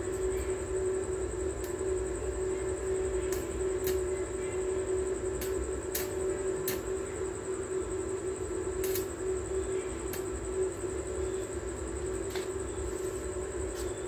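A steady mechanical hum with a low rumble under it. About a dozen sharp, irregular taps of a bricklayer's trowel on hollow clay bricks being laid sit on top of the hum.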